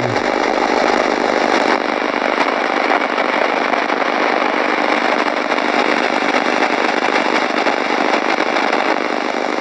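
Sony portable world-band radio's speaker putting out a loud, steady, harsh static rasp with a fast crackle, the radio picking up interference rather than a station. It cuts off abruptly at the end.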